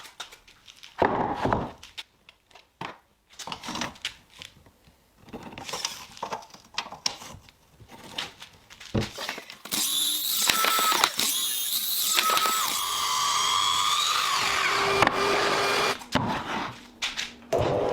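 Woodworking tool sounds: scattered knocks and scrapes, then from about ten seconds in a power tool running loudly with a high whine whose pitch dips and falls near the end.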